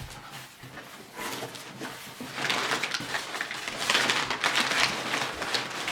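Packaging being handled and opened: light clicks and rustles at first, then about two and a half seconds in a louder, dense crinkling and rustling as the wrapping is pulled off.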